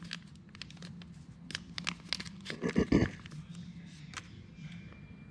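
Small plastic bearing packet crinkling and crackling as it is handled, a run of quick sharp crackles with a louder cluster about three seconds in, then quieter.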